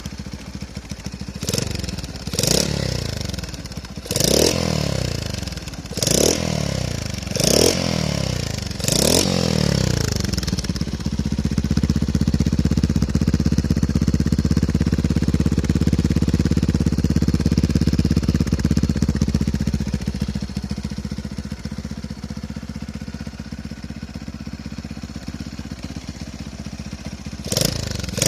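Yamaha Mate's single-cylinder two-stroke engine exhausting through a homemade silencer baffle. It is blipped sharply about six times, then held at raised revs for several seconds and eased back to a lower steady run, with another quick rev near the end.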